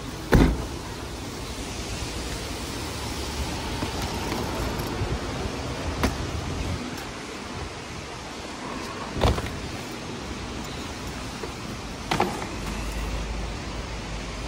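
A vehicle tailgate slams shut about half a second in, the loudest sound here, over steady traffic noise. Three smaller thumps follow at intervals, around 6, 9 and 12 seconds.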